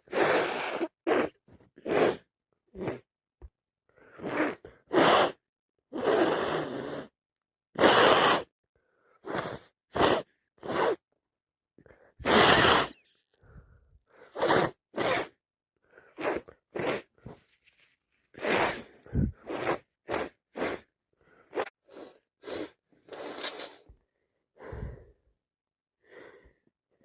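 A long run of wet sneezes from a person with a head cold, one about every second or so, with short catching breaths and sniffs between them.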